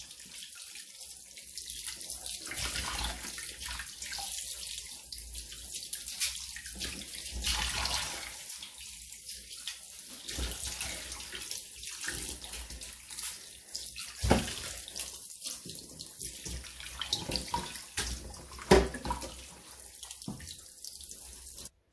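Kitchen tap water running over fish fillets in a stainless steel colander as hands rub and rinse them, splashing, with a few louder splashes along the way.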